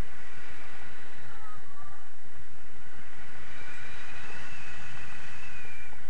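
Wind rushing over the action camera's microphone during a paraglider flight: a steady, loud, rumbling rush with faint thin whistling tones above it.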